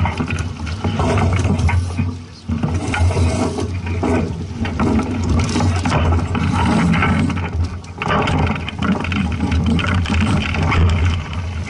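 Wind buffeting the microphone: a loud, uneven low rumble with a rough rush of noise over it, dipping briefly about two and a half seconds in.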